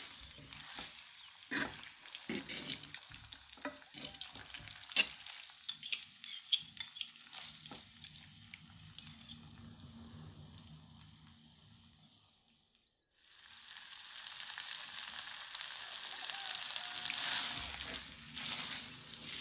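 Spaghetti and meatballs in a creamy sauce being stirred and tossed with a utensil in a nonstick frying pan: quick clicks and scrapes over a low sizzle. About two-thirds of the way through the sound drops out briefly, then a steady sizzle of the sauce simmering comes in and grows, with more stirring near the end.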